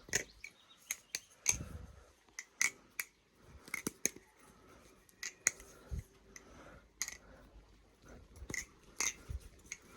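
Balisong (butterfly knife) being flipped: its metal handles and hardware clack and tick in sharp, irregular clicks, some in quick pairs, others a second or more apart.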